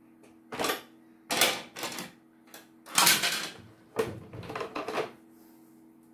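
Plastic housing of a CNY portable embroidery machine being handled and set down on a wooden workbench during disassembly: a series of clattering knocks and scrapes, loudest about one and a half and three seconds in.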